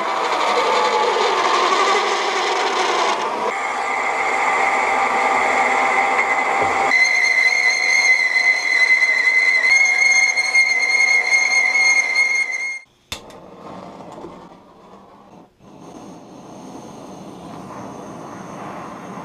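Metal lathe turning an aluminium bushing: the spindle runs and the cutting tool peels long chips, with a steady high-pitched whine from the cut for much of the time. About thirteen seconds in the lathe sound stops suddenly, and a quieter steady hiss of a handheld gas-cartridge torch follows.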